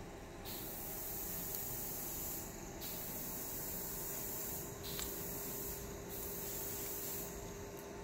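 Paint spray hissing in repeated bursts of one to two seconds with short breaks between them, and a single light click about five seconds in.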